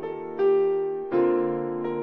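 Slow, soft keyboard music with sustained chords. A new chord is struck about half a second in and another about a second in, and each one dies away slowly.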